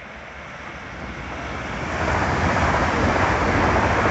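Scotrail Class 385 electric multiple unit drawing near and passing: a rushing rumble of wheels on rails that builds steadily, becoming loud about two seconds in.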